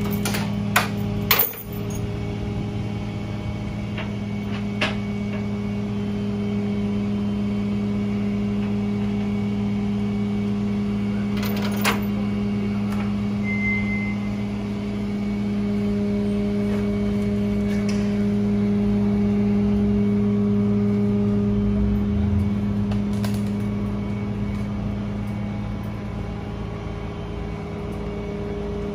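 Koenigsegg Agera RS's twin-turbo V8 idling steadily. A few sharp metallic clanks from tie-down chains and straps come in the first two seconds and again about twelve seconds in.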